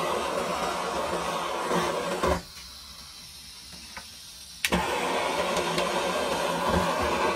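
Handheld gas blowtorch flame hissing steadily; it cuts off suddenly about two seconds in, and a couple of seconds later a sharp click relights it and the steady hiss returns.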